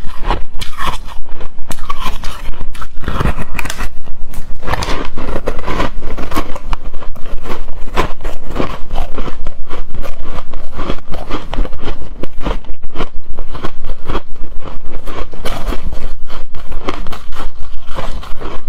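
Close-miked chewing of hard, frosty shaved ice, a dense run of crunchy, squeaky bites in quick succession.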